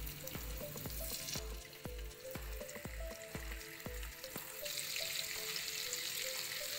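Potato chunks sizzling in hot oil in a wok as more pieces are added. The sizzle grows louder about two-thirds of the way through. Background music with a steady beat plays under the first part.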